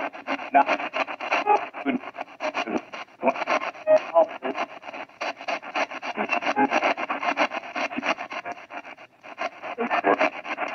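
Radio spirit box (a modified AM/FM radio) sweeping rapidly through the band: a choppy, stuttering stream of static and broken scraps of broadcast sound, cut into many short pieces each second, with a brief drop a little after nine seconds.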